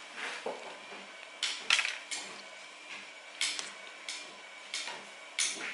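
A person biting into and chewing a flaky macadamia croissant close to the microphone: short crisp crunches of the pastry at irregular intervals, about one or two a second.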